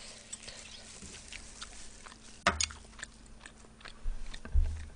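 A person chewing food close to the microphone: small wet mouth clicks throughout, a sharper click about halfway through, and a few low thumps near the end.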